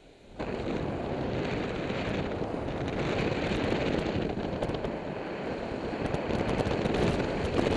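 Airflow buffeting the microphone of a camera on a paraglider in flight: a steady rushing noise that starts suddenly about half a second in.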